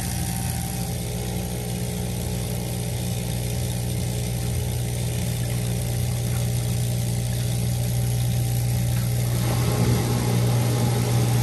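Washing machine drain pump running with a steady low hum as it pumps the water out. The pump has just been cleared of sand that had clogged it, and it is working normally again. Its sound grows fuller about nine seconds in.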